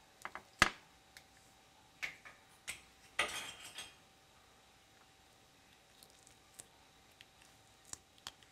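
Clicks and knocks of slime and small plastic slime cups being handled in a clear glass dish: a sharp knock about half a second in, a few lighter taps around two seconds, and a short crackly rustle a little after three seconds, then only faint ticks.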